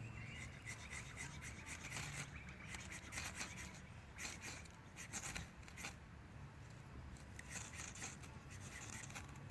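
Rustling, crackling and scraping as someone pushes on foot through dry bush undergrowth and leaf litter. The sound comes in irregular bursts, with a lull about two thirds of the way through.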